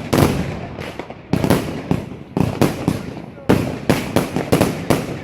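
Firework cake firing a rapid series of shots: sharp bangs, about two to three a second, each with a brief crackling tail.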